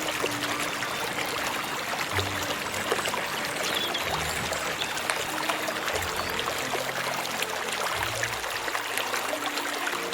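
Steady rush of running water, a dense hiss full of tiny crackles like a stream, with short low held notes sounding on and off beneath it.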